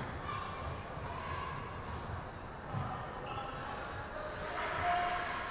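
Basketball bouncing on a hardwood gym floor in a large echoing hall, with a few short high-pitched sneaker squeaks from players moving on the court.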